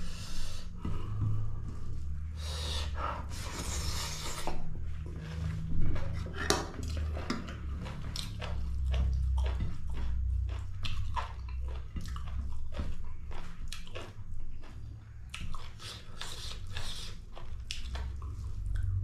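Close-miked eating sounds of a person chewing meat in gravy: many short wet clicks and smacks over a low steady rumble, with a sharper, louder click about six seconds in.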